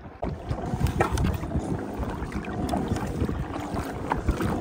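Wind buffeting the microphone over small waves lapping at a pedal kayak's hull: a steady rushing with a low rumble and scattered light knocks.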